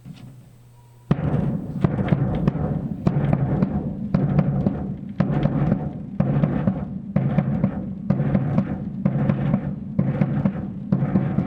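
Surdo bass drum playing a steady quadrilha beat, starting about a second in, with deep ringing low strokes about twice a second.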